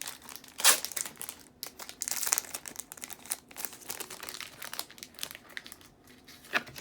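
Foil Pokémon card booster pack wrapper being crinkled and torn open by hand: irregular crackles, with a sharp loud one a little under a second in and a dense flurry about two seconds in.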